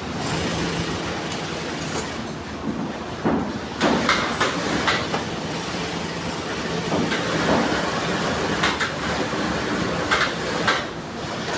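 Industrial sewing machine running in steady stretches while leather glove cuffs are stitched, with a steady motor hum and scattered sharp clicks and knocks.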